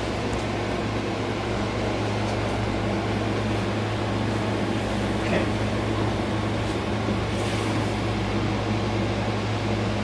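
Steady low electrical hum with even room noise, unchanging throughout, with a couple of faint brief sounds about five and seven seconds in.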